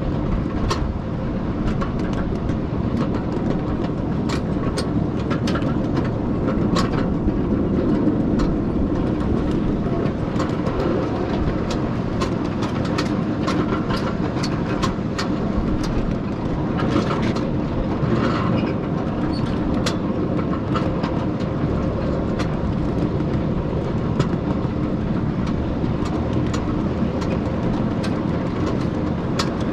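Ride-on 7½-inch gauge miniature railroad train rolling along its track: a steady rumble of wheels and cars with frequent irregular clicks as the wheels run over rail joints. A brief hiss comes a little past halfway.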